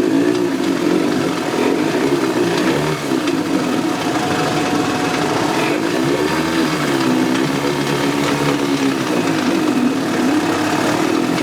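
Evinrude Deluxe 4 hp two-cylinder two-stroke outboard running in neutral, its speed wavering up and down every couple of seconds instead of holding a steady idle.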